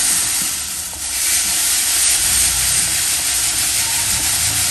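Green coffee beans rattling and sliding across the mesh of a stacked set of screen-size grading sieves as the stack is shaken by hand, a dense, continuous rustling hiss. The shaking sorts the 350 g sample by bean size, with beans dropping through to smaller screens.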